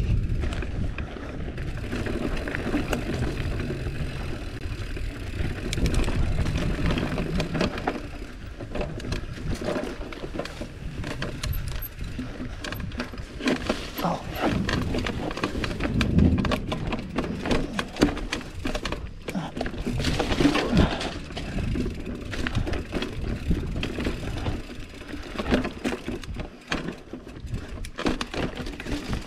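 GT Avalanche mountain bike riding down a rough dirt trail: steady tyre and ground noise with frequent irregular rattles and knocks as the bike goes over bumps.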